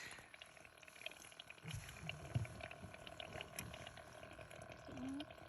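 Faint water sounds at the surface, lapping and trickling, with scattered small clicks and a few soft low knocks about two seconds in.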